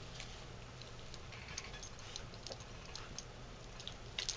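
Scattered light clicks and taps from a dog and a young groundhog play-wrestling on carpet, with a louder quick cluster of clicks near the end as the dog mouths at the groundhog.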